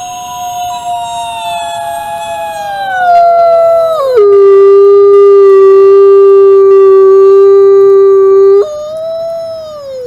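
Wolf howling: a long howl that slides slowly downward, then drops suddenly about four seconds in to a loud, low note held steady for several seconds, followed near the end by a higher howl sliding down.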